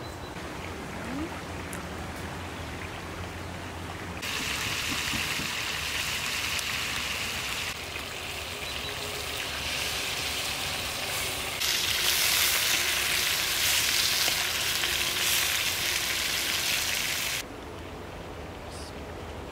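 A steady hiss that grows louder in sudden steps, starting about four seconds in and cutting off suddenly near the end.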